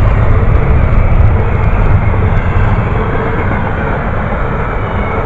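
Double-stack container freight train rolling past, a loud steady rumble of wheels on rail.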